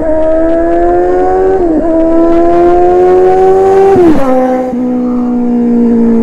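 Kawasaki Z900's inline-four engine through an Austin Racing aftermarket exhaust, accelerating hard with rising revs and shifting up about two seconds in and again about four seconds in. It then holds a steadier, slowly falling note.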